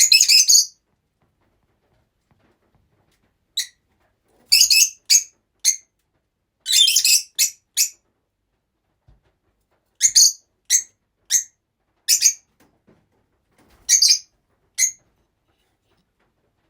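Rosy-faced lovebirds (peach-faced lovebirds) giving short, shrill, high chirps. The calls come in a burst at the start, then in clusters of two to four a few seconds apart, with silent gaps between.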